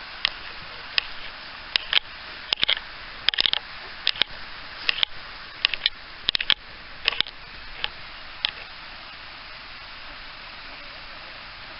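Steady rush of a mountain stream, with irregular sharp clicks and ticks scattered over the first eight seconds or so.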